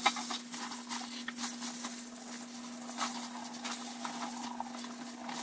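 Tap water running into a stainless steel colander of spinach while hands rinse and handle the leaves, a steady splashing with small crackling rustles of wet leaves. A faint steady low hum sits underneath.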